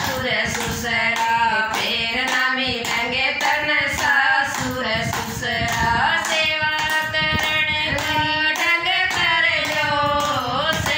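Two women singing a Haryanvi folk bhajan together in a steady melody, clapping their hands on a regular beat about twice a second.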